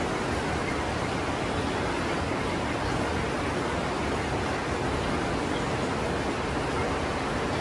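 Steady, even rush of flowing water with no break or change.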